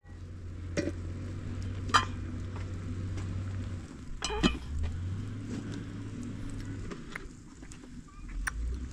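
A few sharp clinks of a cooking pot and utensils, the loudest about two seconds in and again about four and a half seconds in, over a steady low rumble that drops out briefly now and then.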